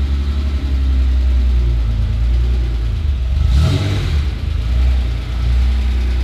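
Reliant Scimitar GTE engine running at low revs as the car is manoeuvred, with a short rise in revs about three and a half seconds in.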